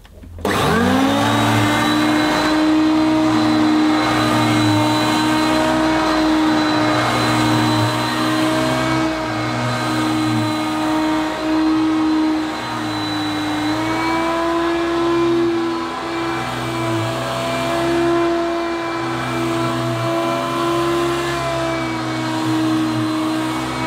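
Hoover Concept One U4219 upright vacuum cleaner's motor starting with a quick rising whine, then running loud and steady, its pitch wavering slightly as the machine is pushed over plush carpet. The owner finds it very noisy and a bit rough.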